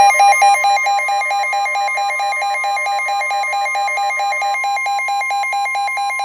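Emergency Alert System attention signal for a tornado warning: a steady high tone with a lower tone pulsing rapidly and evenly over it.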